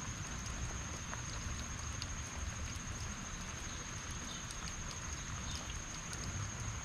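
Steady heavy rain falling on a lawn, hedges and trees, with scattered close drips ticking, over a constant high-pitched whine.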